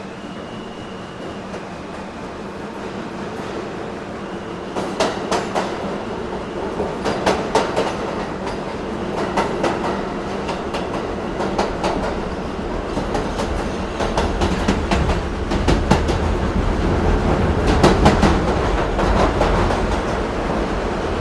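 New York City subway train in motion: a steady rumble that grows louder, with clusters of sharp wheel clacks from about five seconds in.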